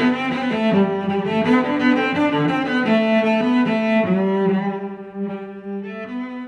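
Instrumental background music: a melody of held pitched notes that changes every second or so, becoming softer near the end.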